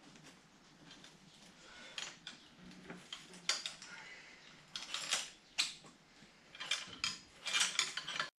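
Light metallic clicks and clinks of hands working on a children's bike's rear coaster-brake hub and chain as the rear wheel is freed from the frame, coming faster and louder in the last couple of seconds.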